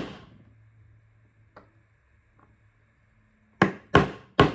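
Three sharp metal strikes close together near the end, as a tool is driven into the seam between the laminated steel plates of a padlock to split them apart; a single faint click comes before them.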